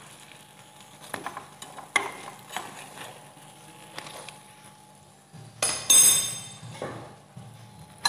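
Wire spider skimmer clicking and scraping against a frying pan as fried doughnuts are lifted out of hot oil, with faint sizzling. A louder ringing metal clatter comes about six seconds in.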